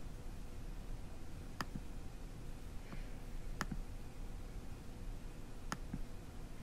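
Computer mouse clicks: three sharp single clicks about two seconds apart, over a low steady hiss, from video playback being paused and scrubbed.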